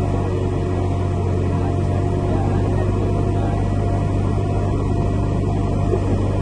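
Steady, unbroken drone of an Airbus airliner's turbines on the ramp during pushback: a strong low hum with a thin steady whine above it.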